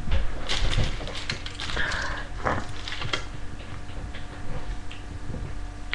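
A pet dog making small noises close by, among scattered irregular knocks and rustles.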